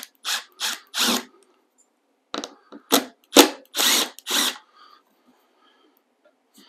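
Cordless impact driver with a T30 star bit backing out the captured screws on a DeWalt 735 thickness planer's top cover. It runs in short trigger bursts, four quick ones and then, after a pause, five more.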